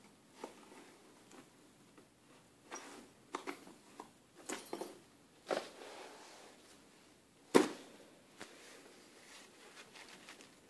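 Scattered light knocks and rustles, with one sharp, louder knock about seven and a half seconds in.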